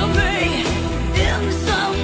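Pop song playing: a sung melody over a band with a steady bass line.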